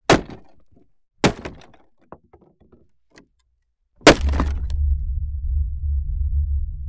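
Horror-film sound design: three sharp hits with short decaying tails, one at the start, one just over a second in and one about four seconds in, with a few small scattered clicks between them. With the third hit a low, steady rumbling drone starts and carries on.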